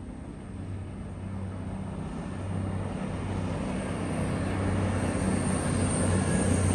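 Class 220/221 Voyager diesel multiple unit approaching. The drone of its underfloor diesel engines grows steadily louder, with rising rumble and rail noise.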